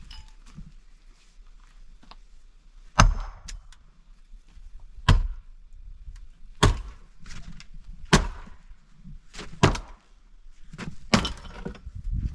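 Axe chopping firewood on a log on the ground: about seven sharp blows at irregular intervals of a second or two, two of them in quick succession, some with a short crack of splitting wood after the hit.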